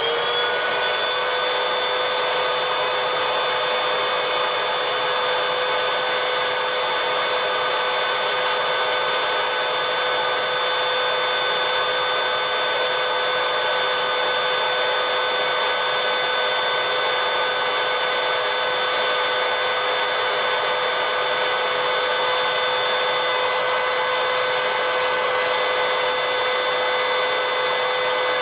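Vacuum cleaner motor running steadily at full speed with an even whine, its hose nozzle worked over a laser printer's transfer belt unit.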